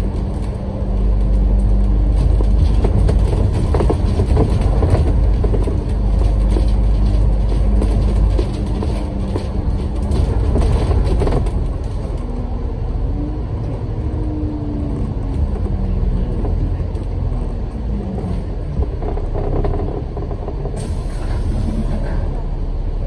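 A bus's engine and road noise heard from inside the moving bus: a steady drone that eases off about twelve seconds in. A brief rising-then-falling whine follows a little later, and a short high hiss comes near the end.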